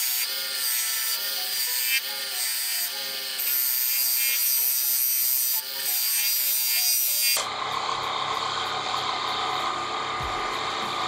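Beading tool scraping beads into the face of a wooden plate spinning on a lathe: a rasping cut with a squeal that rises and falls about twice a second, stopping abruptly about seven seconds in. A steady hum and hiss with faint regular ticks follows.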